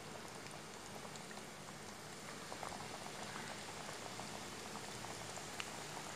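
Chicken nuggets coated in crushed oats deep-frying in hot oil: a steady sizzle with small crackles and pops.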